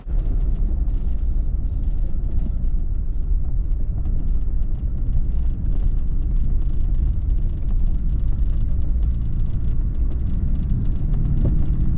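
Vehicle on the move: a steady low rumble with many small rattles and knocks, and an engine's drone coming up near the end.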